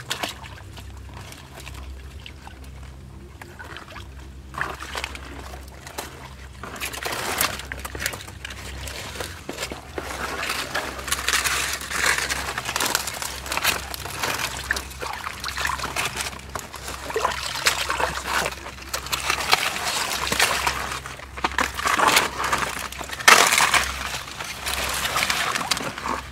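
Shallow water sloshing and trickling as it is stirred by hand. It is quiet for the first several seconds, then becomes busier and louder from about seven seconds in, with the loudest stretches near the middle and near the end.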